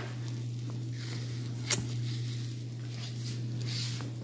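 Faint sizzling from a hot sheet pan of roasted chicken and peppers fresh from the oven, over a steady low hum, with one sharp click about two seconds in.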